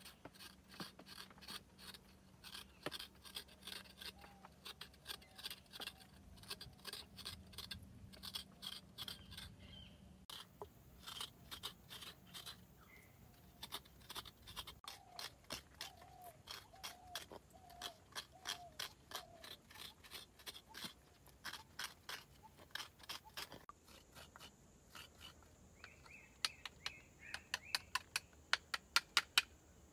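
Fresh coconut flesh being scraped out of a piece of coconut shell with a small hand tool: short scratchy strokes, about two or three a second, growing faster and louder near the end.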